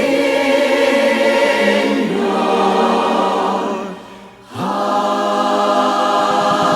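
Large choir singing held chords; the sound fades away about four seconds in and a new chord comes in half a second later.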